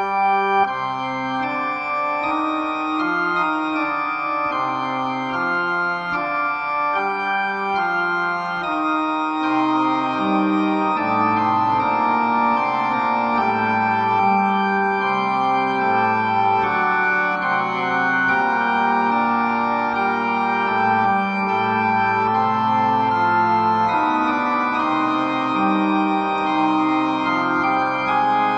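Two-manual electronic organ playing a fugue, several sustained lines moving at once. It comes in abruptly at the start and keeps an even loudness.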